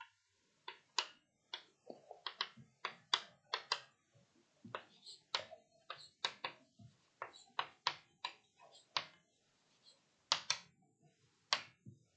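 Chalk tapping and scraping on a blackboard as words are written: an irregular run of short, sharp clicks, one for each stroke of the chalk.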